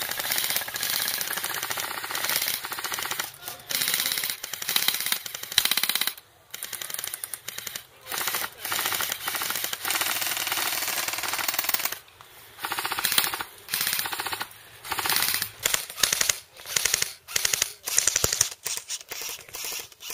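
Airsoft electric guns firing on full auto: a rapid, even rattle of shots in long bursts of several seconds with short pauses between, turning to shorter bursts in the last few seconds.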